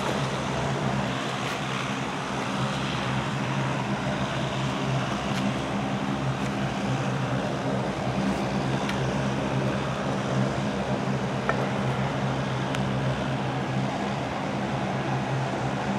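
Jet engines of a Boeing 787-8 on the ground, heard from a distance: a steady drone with a low hum under an even rush of noise.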